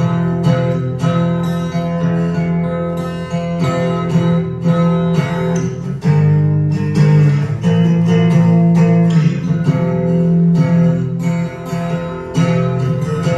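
Guitar music with steady, regular strumming.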